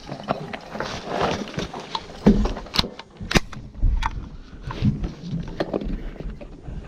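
Airsoft guns firing: several separate sharp cracks, scattered irregularly, with the sharpest two about three seconds in, over low rustling and thumps.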